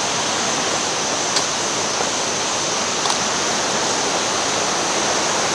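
Steady rushing of water at a large waterfall.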